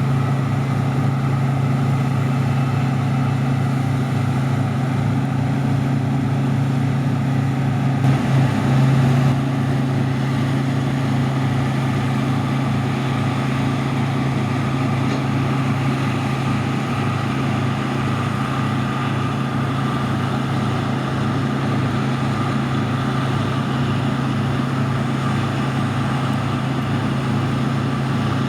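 New Holland CX8080 combine harvester working in wheat, a steady deep engine hum over the noise of its machinery. It swells briefly about eight seconds in.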